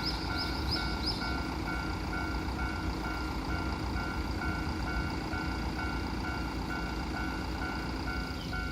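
Japanese level-crossing warning bell ringing in a steady, even pulse of about two rings a second, over a steady low rumble.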